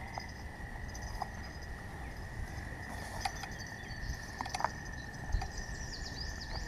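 A steady high-pitched trill from calling animals, frog- or insect-like, holds on one pitch throughout, with a few light clicks and taps scattered over it.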